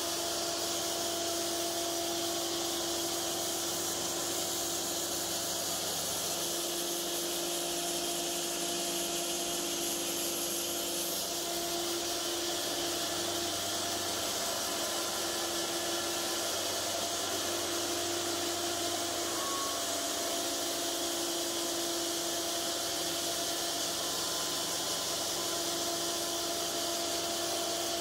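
Cook's AC-36 thin-kerf portable bandsaw mill running as its band blade feeds through a 20-inch cant on a slabbing cut: a steady machine hum with an even hiss of sawing over it.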